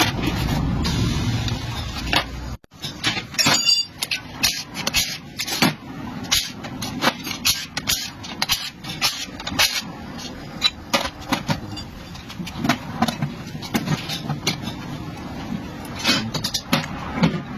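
A steady low running rumble that cuts off abruptly a little over two seconds in, followed by a long run of irregular sharp metallic clicks and knocks from metal parts and tools being handled, with a brief high squeak soon after the cut.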